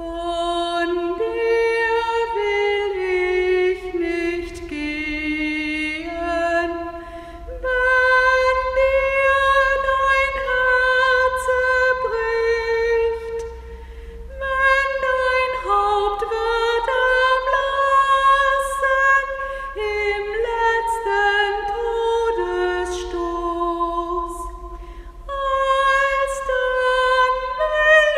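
A woman singing solo and unaccompanied, a slow melody of long held notes with brief pauses between phrases.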